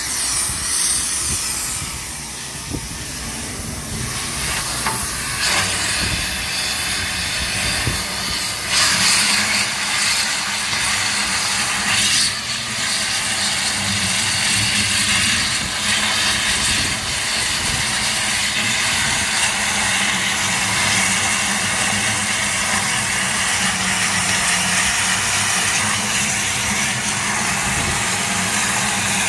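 Long steelworks oxy-fuel cutting torch running, its oxygen jet giving a steady loud hiss as it burns through a thick steel machine housing and shaft; the hiss grows louder about nine seconds in. A low steady hum runs underneath.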